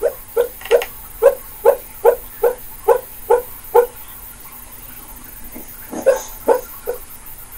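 A sleeping dog giving a run of short woofs while dreaming, about two or three a second for some four seconds, then three more after a pause near the end.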